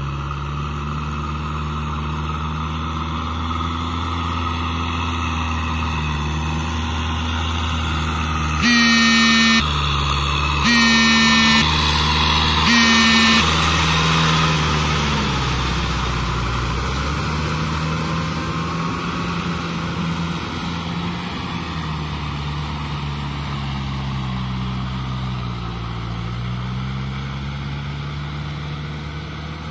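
Kubota tractor's diesel engine running under load as its rotavator churns a flooded rice paddy; the engine note sags and recovers a couple of times. About nine seconds in, a horn sounds three times, each blast about a second long and louder than the engine.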